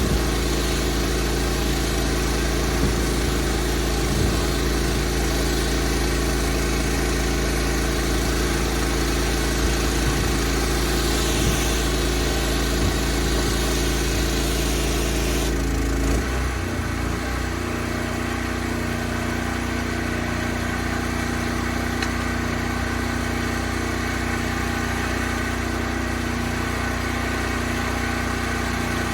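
Pressure washer's engine running steadily with the hiss of high-pressure water spray; about halfway through the spray hiss drops away and the engine note changes and settles.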